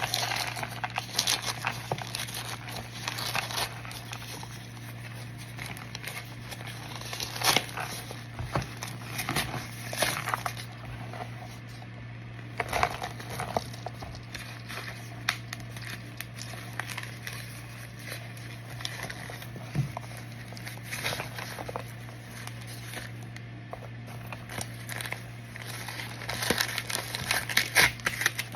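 Dry, crisp microwave-baked cornstarch being handled and crumbled, giving irregular crackling and crinkling, busier near the end.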